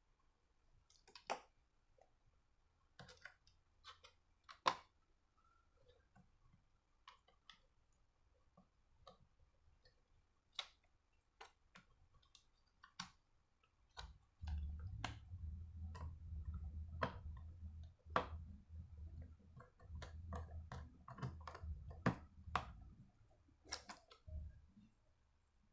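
Faint scattered clicks and taps of small screws and a screwdriver against a laptop's plastic bottom case as its screws are put back in. From about halfway a low rumble runs under the clicks until near the end.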